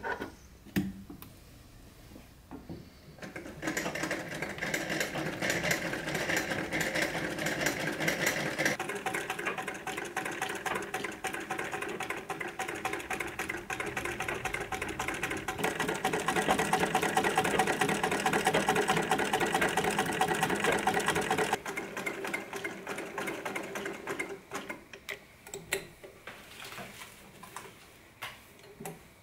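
Antique hand-crank Singer sewing machine stitching with a rapid, dense ticking. It starts a few seconds in, grows louder later on and stops suddenly about two-thirds of the way through, leaving lighter scattered clicks.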